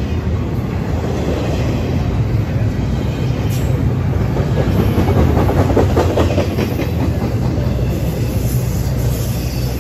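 Double-stack intermodal freight train rolling past close by: the loud, steady rumble and clatter of the well cars' wheels on the rails.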